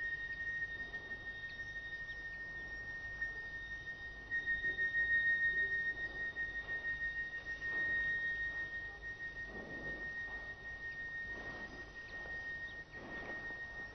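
A steady, high-pitched tone held unbroken over a faint background, with a few soft swells lower down in the second half.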